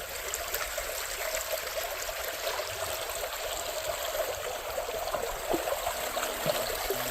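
Shallow creek water running and trickling steadily over stones.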